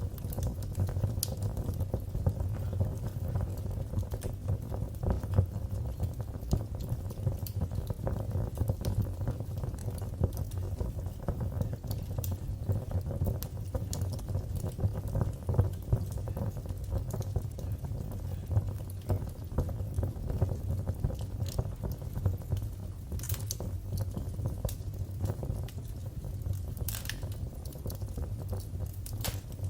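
Wood fire crackling in a fireplace: a steady low rumble of flames under a dense run of small crackles, with a few sharper pops near the end.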